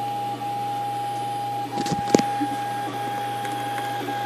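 Prusa i3 3D printer's stepper motors whining steadily as the axes move through a dry run, with short breaks between moves and a couple of sharp clicks about two seconds in.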